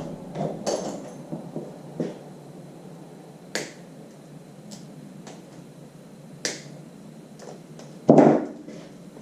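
Handling noises: scattered sharp clicks and light taps at irregular intervals, with a louder knock about eight seconds in.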